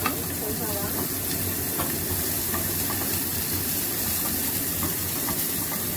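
Chopped garlic and sliced spring onion sizzling steadily in hot oil in a small nonstick saucepan, with a spatula stirring and scraping the pan now and then.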